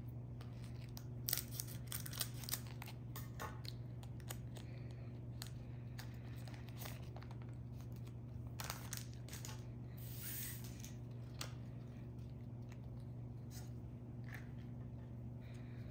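Scissors snipping open the foil wrapper of a Pokémon card booster pack, a few quick cuts in the first few seconds. Afterwards there is scattered faint crinkling of the wrapper and the soft handling of the cards.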